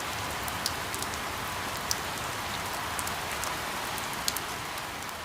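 Steady rain falling, a hiss with a few sharp drip ticks standing out, fading away near the end.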